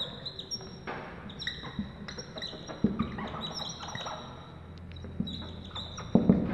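Dry-erase marker squeaking and tapping on a whiteboard while a line of text is written: a run of short, high squeaks that start and stop with each stroke.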